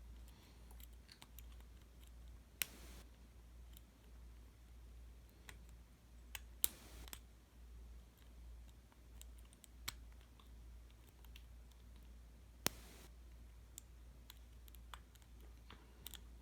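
Lock pick and tension wrench working the pins inside a Master Lock LOTO padlock with a 400B keyway during single pin picking. Faint scattered clicks, with a few sharper clicks spaced several seconds apart.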